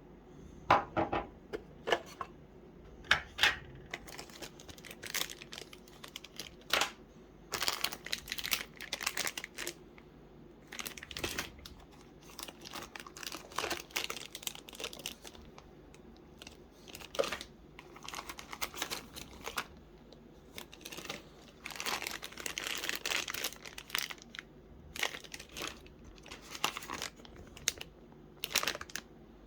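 Product packaging being handled and unwrapped: irregular crinkling and tearing of wrapping, broken by sharp clicks and knocks.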